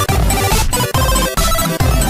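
Loud music with a steady heavy beat and a melody of short, stepping notes.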